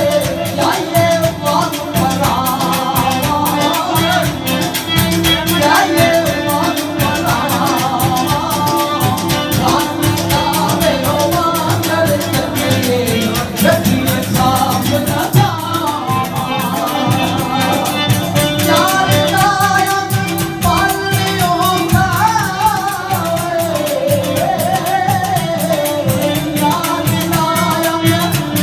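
A man singing a folk song into a microphone through a PA system, his voice wavering and ornamented, over instrumental accompaniment with a steady beat.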